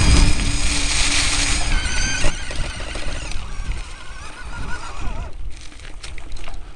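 Electric motor whine from a delta/wye-switchable brushless motor driving across rough ground, with rumble and rattle beneath it. The whine fades about two seconds in as the vehicle slows onto smoother pavement, leaving a faint wavering whine and a few sharp knocks near the end.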